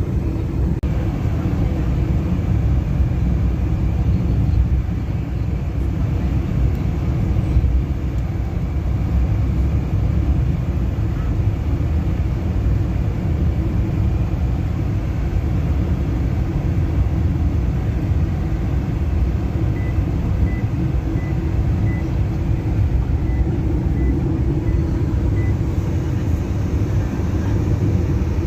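Steady road and engine rumble inside a moving car's cabin. Faint short high beeps come about twice a second for several seconds past the middle.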